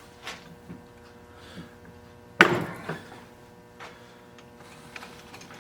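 A single sharp knock of something hard set down or struck, about two and a half seconds in, ringing briefly. A few light handling clicks and a faint steady hum sit around it.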